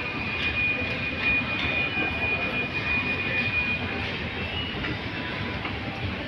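Shopping-mall escalator running, a steady rumble heard while riding it down, with a thin high steady whine that stops about four seconds in.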